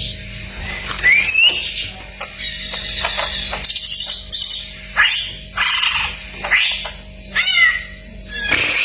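A cucak ijo (green leafbird) singing a fast, varied song of whistled glides, chirps and short trills, a full song laced with mimicked calls of other birds. A faint steady hum runs underneath.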